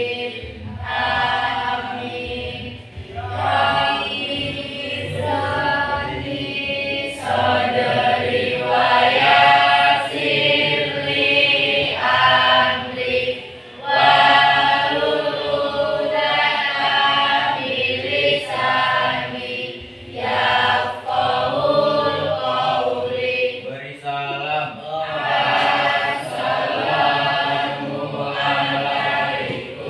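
A class of schoolchildren singing together in unison, phrase after phrase with short pauses between.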